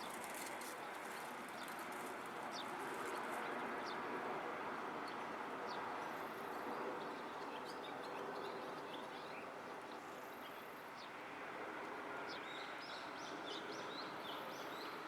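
Small birds chirping in short, scattered calls over steady background noise. The chirps come thicker near the end.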